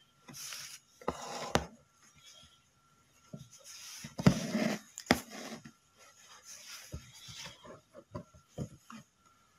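Embroidery thread pulled through fabric around a stitched-down mirror: several rasping swishes of thread drawn through the cloth, the loudest a little after four seconds in, followed by short ticks of the needle near the end.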